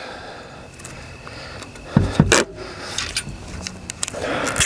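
Camo duct tape being pulled off the roll with a long ripping sound over the first two seconds, then handled and pressed down onto a foam-filled rung of a metal climbing treestand, with a couple of knocks about two seconds in.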